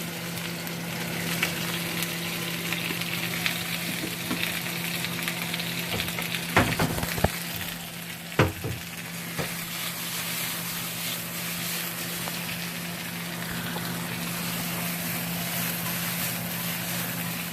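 Sliced peppers and onions sizzling in a hot wok as they are sautéed and stirred, with a few sharp knocks of the utensil against the wok about six to eight seconds in. A steady low hum runs underneath.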